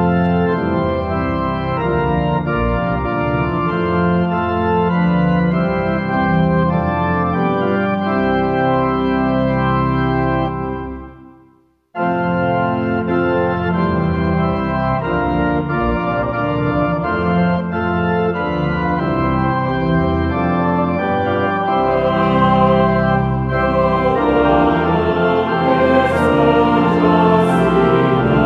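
Organ playing a slow hymn tune in held chords. About ten seconds in the music fades away to a moment of silence, then the organ starts again abruptly and plays on.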